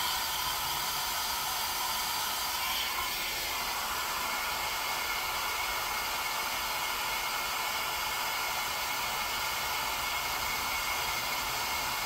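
Handheld hair dryer blowing steadily, a constant whooshing hiss, heating shrink tubing down tight over a spliced power cord.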